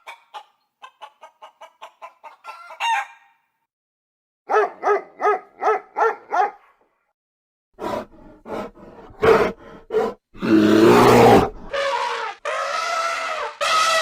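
Chickens clucking in quick runs of short calls, then a louder, rougher call about ten seconds in, followed by long drawn-out calls near the end.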